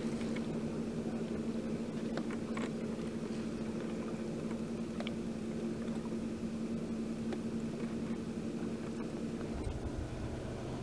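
Water rushing and lapping along the hull of a small sailboat under way, over a steady low hum; near the end the hum shifts lower.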